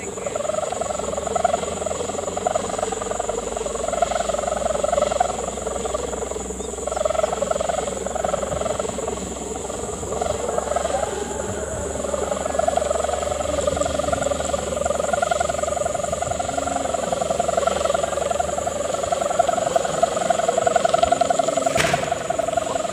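Kite hummer (sendaren) on a flying gapangan kite, humming in the wind as a fluttering, wavering drone that comes in patches at first and holds steadier in the second half. One sharp click sounds near the end.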